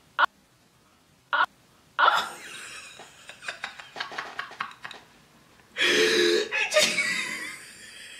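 Two brief sharp vocal sounds about a second apart, then a woman laughing, with breathy bursts that get louder about six seconds in.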